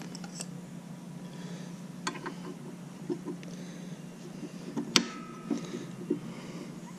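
Small metal clicks and taps as a motorcycle foot peg, its pivot pin and spring are handled and fitted to the bracket. One sharp metallic click about five seconds in is followed by a brief ring. A steady low hum runs underneath.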